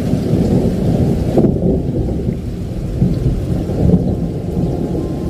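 Rain falling with a long, deep roll of thunder rumbling on underneath.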